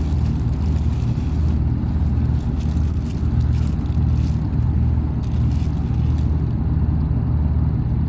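Old heat pump outdoor unit running in heat mode, its Copeland scroll compressor giving a steady low hum and sounding rough. The technician takes the rough sound for a compressor that is failing mechanically and probably not long for this world.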